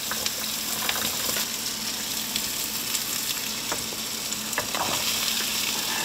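Cubed carrots, potatoes and garlic sizzling steadily as they are tipped into a pan of hot oil. A knife scrapes them off a wooden cutting board with a few light clicks and knocks.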